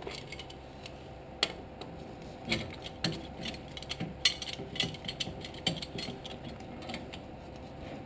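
Irregular metal clicks and knocks as a C-clamp is fitted over the old brake pad against the rear brake caliper's piston, ready to press the piston back. A faint steady hum sits underneath.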